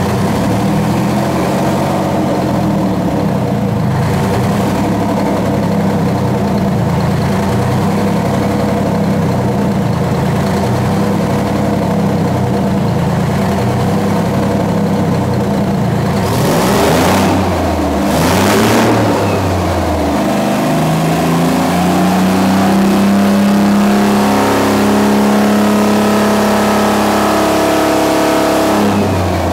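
Detroit Diesel 12V71, a two-stroke V12 diesel, running on a test stand at a steady speed. Just past halfway there are two short, loud rushing noises. Then the engine speed rises and holds higher, with a steady, higher-pitched note, before dropping back at the very end.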